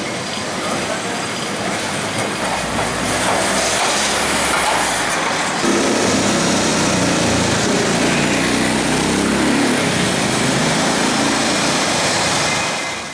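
Carris historic electric tram running on street rails, a steady mix of wheel-on-rail noise and motor rumble. The rumble gets heavier about six seconds in.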